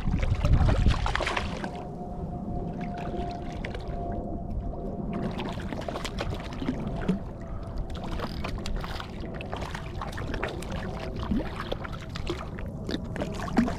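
A hooked fish thrashing and splashing at the water's surface beside a kayak, a loud burst of splashing about a second in, then repeated short splashes and slaps as it is drawn alongside. A steady thin tone runs underneath.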